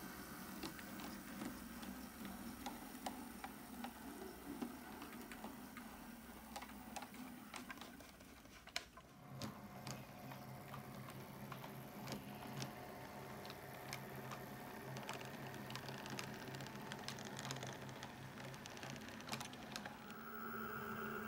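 OO gauge model trains running slowly: wheels clicking irregularly over rail joints and pointwork, over a steady hum from the locomotive motor.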